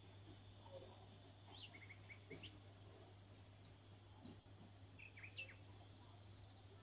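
Near silence: a steady low hum with a few faint, short high chirps, one cluster about one and a half seconds in and another about five seconds in.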